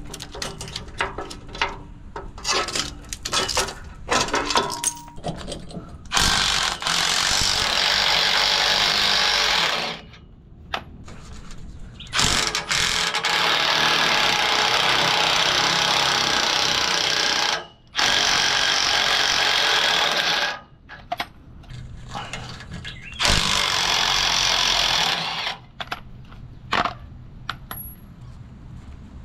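Milwaukee cordless impact wrench hammering in four long bursts, each a few seconds, as it works the rusted nuts off the trailer's old rear leaf spring mounts. Between bursts, clinks and knocks of the socket and metal parts being handled.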